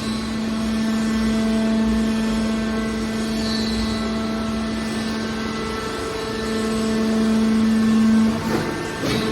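Hydraulic scrap metal baler running: a steady, loud mechanical drone with a strong hum, growing a little louder later on, followed by a few short metallic knocks near the end.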